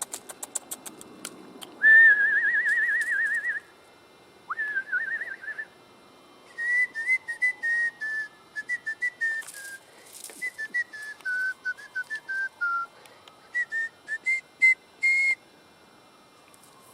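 A person whistling: a warbling trilled whistle, a shorter second one, then a long run of short whistled notes that step down in pitch and climb back up. A few light clicks come before it.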